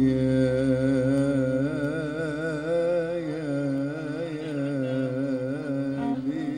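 Male voice singing a long wordless melismatic line in Arabic style, the pitch wavering and bending through ornaments, over a steady held keyboard chord.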